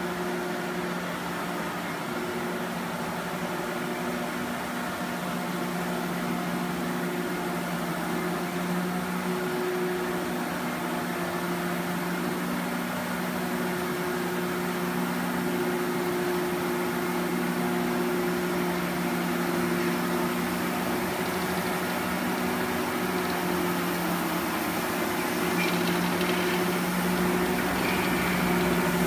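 Factory Cat XR40C ride-on scrubber dryer running while it scrubs a floor: a steady motor hum with several pitched tones over a hiss, growing louder as the machine drives closer.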